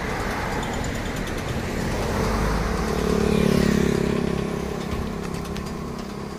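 Road traffic: a motor vehicle passing close by, its engine hum and tyre noise swelling to a peak about three and a half seconds in and then fading.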